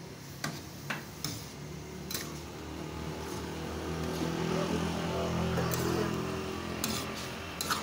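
Long metal spatula and tongs clinking and scraping against a steel wok as meat is stir-fried, with several sharp clinks near the start and the end. A low droning hum swells and fades through the middle.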